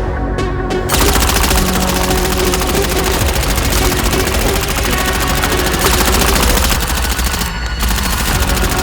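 Rapid, continuous volleys of blaster fire, like machine-gun fire, starting about a second in, with a brief letup near the end, over electronic background music.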